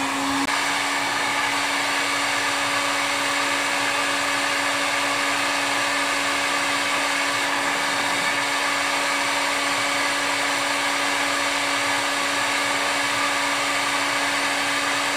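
Electric hot-air blower running steadily, a constant motor hum under the hiss of rushing air, used to heat EVA foam so it can be shaped.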